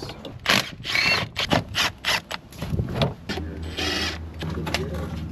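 Metal clanks, knocks and scrapes as a car's starter motor is worked loose and pulled out. A steady low hum comes in past the halfway mark.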